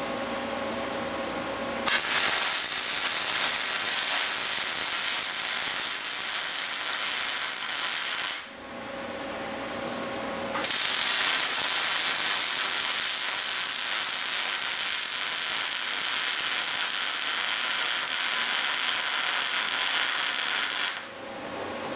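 MIG welder arc running two beads on a steel leaf spring perch pad, a steady hiss of arc noise. The first bead starts about two seconds in and lasts about six seconds; after a short pause a longer bead of about ten seconds stops shortly before the end.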